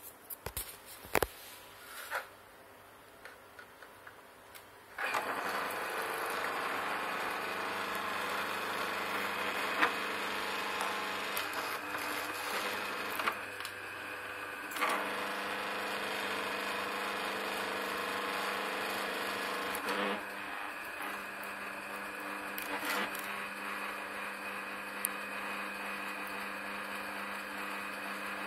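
A few handling knocks and clicks, then about five seconds in a tabletop wet rice grinder switches on and runs with a steady motor hum. The freshly repaired grinder is running without the noise it had, which the technician calls fully okay, no problem.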